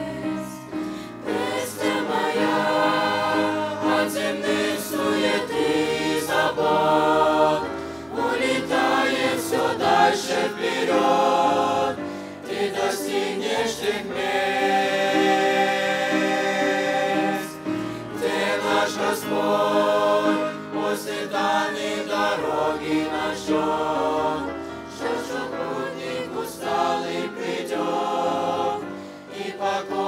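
Teenage mixed choir of girls and boys singing a Russian-language hymn together, several voices at once.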